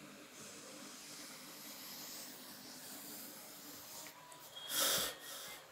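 Faint steady hiss of the open stage microphone, then near the end a short, louder breath drawn in close to the microphone by the Quran reciter.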